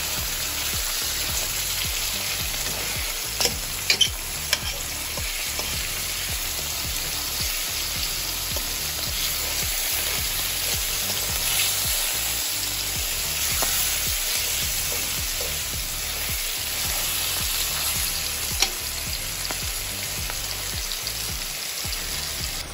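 Salmon sizzling steadily in hot coconut oil in a stainless steel pan while it is broken up with a metal fork, with a few sharp clinks of the fork on the pan about four seconds in and once more near the end.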